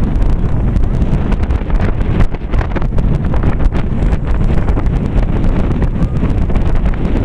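Wind buffeting the camera microphone: a loud, steady low rumble with many short crackles.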